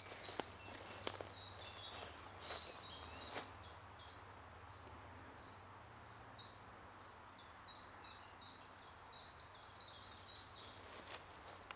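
Small birds chirping in short, high notes, busiest in the second half, over a quiet outdoor background. A few faint sharp crackles come in the first few seconds.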